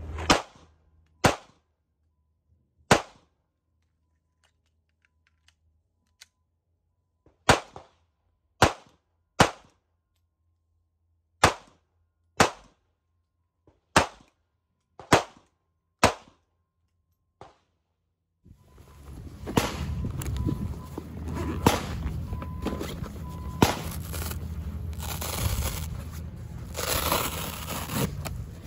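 Single pistol shots from a 9 mm Sig Sauer P365 XL, about thirteen sharp cracks at an uneven pace, with silence between them. Around two-thirds of the way in the shooting stops and a steady, busier background sound takes over.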